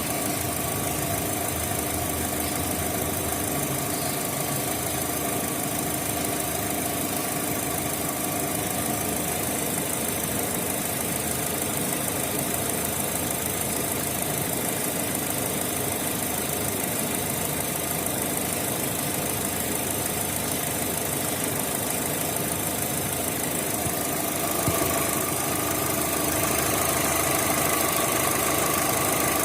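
Opel Z18XE 1.8-litre four-cylinder petrol engine idling with a misfire, running on three cylinders; the misfire comes from a faulty Siemens Simtec 71.6 engine control unit. It gets a little louder about 25 seconds in.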